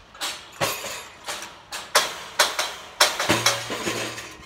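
Steel scaffolding parts being dismantled: a quick, irregular run of about a dozen sharp metal clanks and knocks, each ringing briefly.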